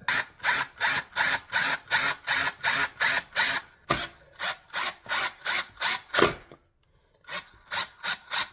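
A trimhead screw being driven by hand into a pre-drilled hole in hardwood flooring, a rasping grind of the screw in the wood with each turn, about three strokes a second, with a short pause near the end.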